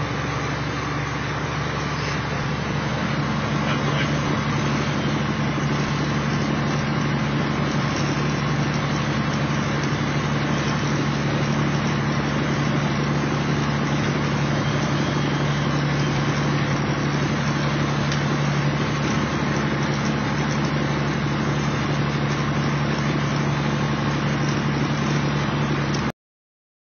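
Kenworth T600A's Caterpillar diesel engine running steadily at highway speed, heard inside the cab over an even rush of road and tyre noise. The sound cuts off suddenly near the end.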